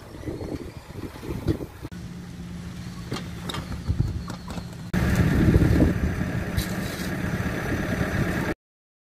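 Construction-site machinery: an engine runs steadily under scattered knocks and rattles, louder for the last few seconds, then the sound cuts off abruptly.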